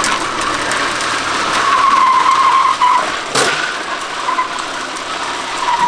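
A car tow-starting a racing lawn mower on a tow strap, with the mower dragged along, its wheels skidding instead of turning the engine over. There is a steady rushing noise, a squeal that comes in about a second and a half in, and one sharp knock about halfway through.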